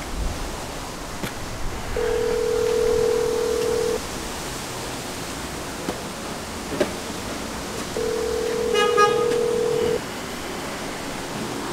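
Telephone ringback tone of an outgoing call on speaker: two steady rings of about two seconds each, four seconds apart, while the call waits for an answer. A brief higher chirp sounds during the second ring.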